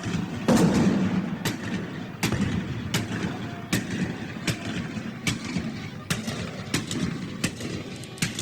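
Battle ambience: scattered gunshots cracking every half second to second over a continuous low rumble, with a heavy cannon boom about half a second in.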